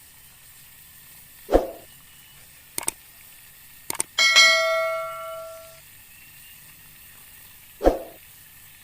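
A bell-like chime rings out for about a second and a half, set between two low thumps and a few sharp clicks, over a faint steady hiss.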